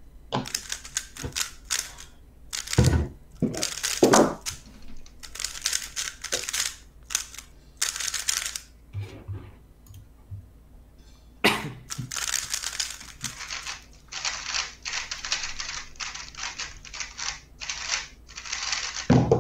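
3x3 speedcube clicking and clacking as it is turned by hand, in scattered bursts through the first nine seconds or so. From about 14 seconds in, a fast, nearly unbroken run of turning for a timed solve of about six seconds, ending in a thump as the hands come down on the timer to stop it.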